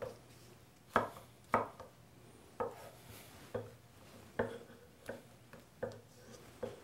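Chef's knife slicing through zucchini strips and knocking on a bamboo cutting board, about eight cuts at roughly one a second, unevenly spaced.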